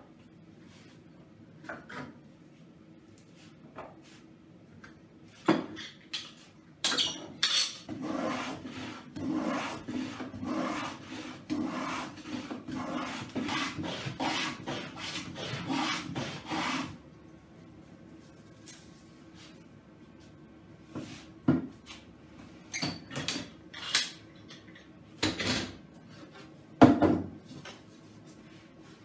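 Hand rubbing strokes on a wooden guitar back with freshly glued braces, about two strokes a second for some ten seconds, between a few sharp wooden knocks and clacks as the parts are handled.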